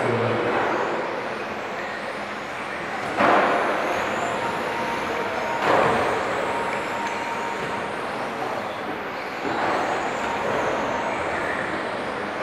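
1:10 scale 4WD RC touring cars racing on a carpet track: a steady rush of motors and tyres with high whines rising and falling as the cars pass. There are two sudden louder swells, about three and six seconds in.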